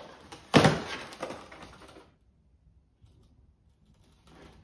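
Cardboard shipping box being pulled open by its sides: a loud scrape of cardboard about half a second in, dying away into rustling by about two seconds, then near quiet with a faint handling sound near the end.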